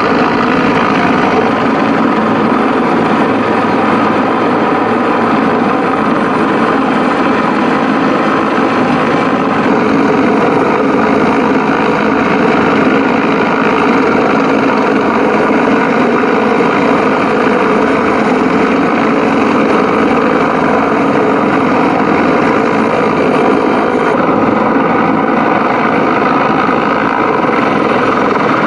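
Helicopter hovering overhead during a hoist rescue, its rotor and turbine engine running as a loud, steady, unbroken noise.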